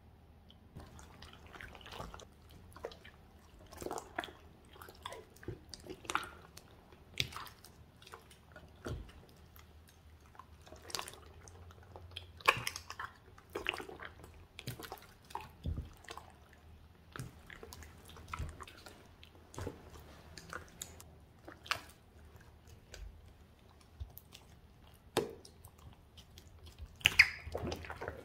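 Hands squeezing, kneading and stretching a big batch of sticky slime mixed with glitter and beads, giving irregular wet squelches, clicks and pops. A few sharper pops stand out about halfway through and near the end.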